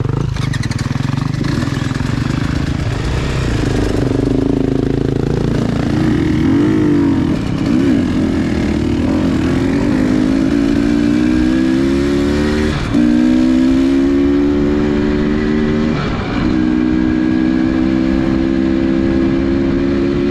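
Dirt bike engine under way. Its pitch wavers at first, then climbs steadily, with two upshifts about thirteen and sixteen seconds in, each followed by the pitch climbing again.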